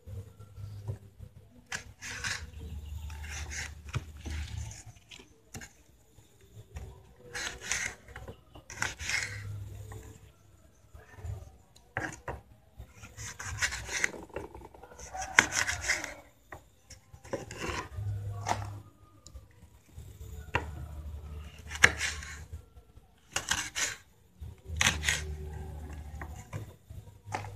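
Kitchen knife slicing red chillies on a wooden cutting board: irregular strokes of the blade scraping and tapping against the wood.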